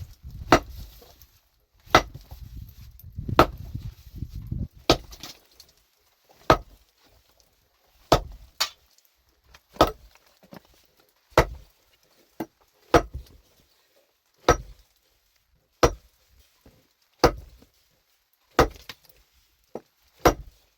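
A hand tool striking hard material over and over in a steady rhythm, a sharp blow about every one and a half seconds.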